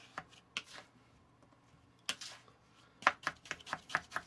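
Plastic toy shovel cutting and digging into a mound of kinetic play sand, with short scraping, crumbling strokes. There are a few scattered strokes at first, then a quick run of chops, about six a second, from about three seconds in.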